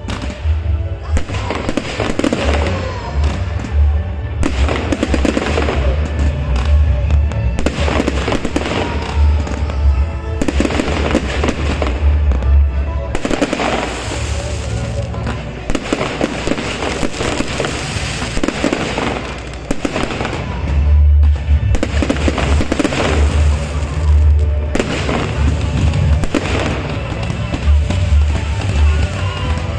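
Aerial fireworks bursting again and again, sharp bangs and crackles every second or few, over a steady low rumble. Music plays underneath, with some voices.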